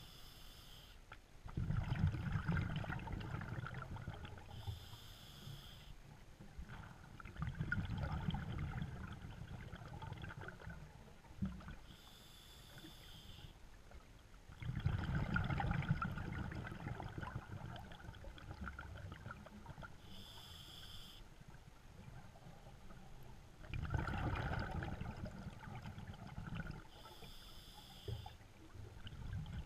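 Scuba diver breathing through a regulator underwater: a short hissing inhale roughly every seven to eight seconds, each followed by a longer rumble of exhaled bubbles, four full breaths in all.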